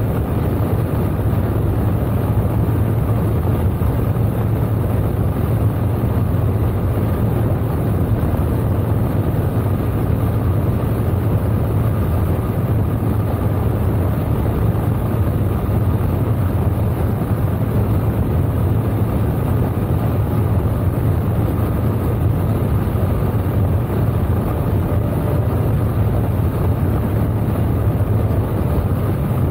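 Motorcycle cruising steadily at highway speed: a constant low engine drone under steady wind and road noise.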